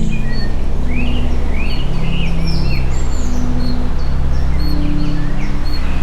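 Low, steady tones that shift every second or so, with birds chirping repeatedly over them. This is a sound-therapy mix of binaural-beat drones and birdsong.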